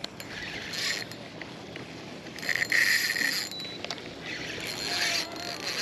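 Spinning reel being cranked against a hooked fish: a mechanical whirring of the reel and line that comes in several spurts of about a second each.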